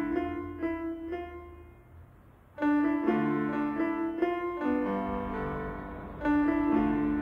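Soundtrack music led by piano: held chords that fade away, with a new phrase striking up about two and a half seconds in and again near the end.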